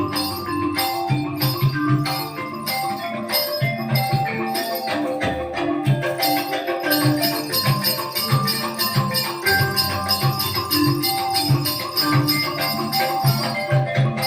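East Javanese gamelan music for the Remo dance: metallophones play a repeating melody over dense, rapid drumming, with a constant jingling of small bells.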